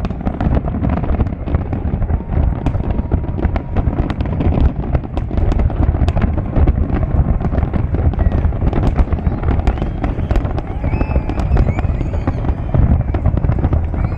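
Fireworks display: a dense, continuous barrage of bangs and crackling over a constant low rumble, with a few high whistling tones near the end.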